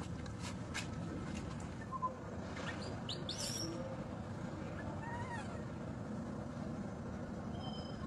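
Steady outdoor background noise with a few faint high bird chirps: a quick cluster about three seconds in and a short falling call a couple of seconds later.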